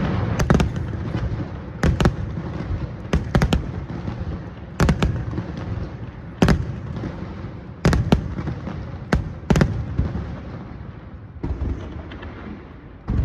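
Aerial fireworks bursting: about a dozen sharp bangs at irregular intervals, some in quick pairs, each trailing off in a long echoing rumble.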